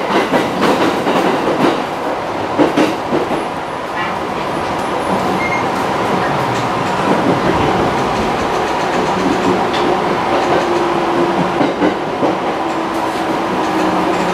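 Inside a JR East 209 series electric commuter train running into a station, with wheels clicking over rail joints and points in the first few seconds. The rumble then settles, and a steady whine comes in during the second half as the train slows for the platform.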